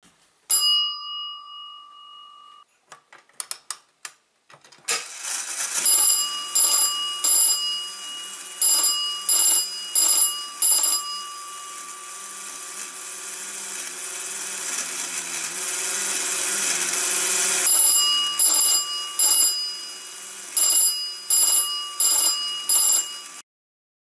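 A single bell ding as the relay powers up, then a few clicks. A 4-inch fire alarm bell then rings in pulsed groups of strokes, coded by a Standard Electric BC-1250 pull station's clockwork code wheel through a relay. A long unbroken ring swells in the middle, and the bell cuts off suddenly near the end.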